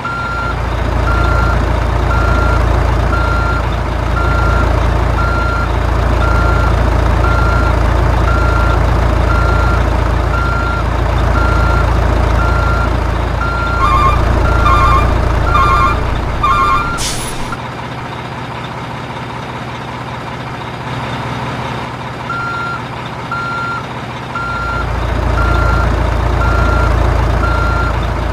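Toy RC construction truck's electronic reversing beeper sounding in regular beeps over the low hum of its electric drive motor. About two-thirds of the way through, a quicker run of paired beeps ends in a sharp click, the motor hum and beeping stop for several seconds, then both start again.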